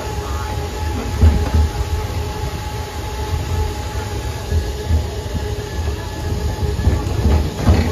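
Open-air sightseer tram running at low speed: a steady low rumble with irregular low thumps and a faint steady whine.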